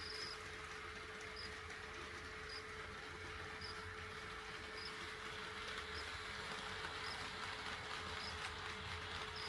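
HO-scale model train running on the layout's track: a quiet, steady running noise with a faint, constant hum, and short high chirps about once a second.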